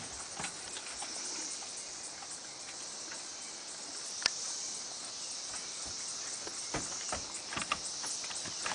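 Steady high-pitched insect chorus, with a few scattered knocks from a horse shifting its hooves on a trailer floor; the sharpest knock comes about four seconds in, and several more come near the end.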